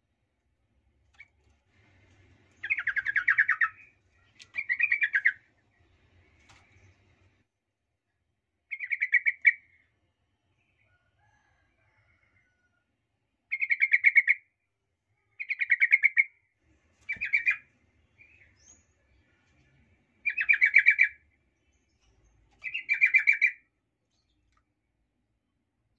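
Yellow-vented bulbul singing short, rapid chattering phrases, each about a second long and repeated about eight times with pauses between. It is the bulbul's lure song, used to provoke rival bulbuls.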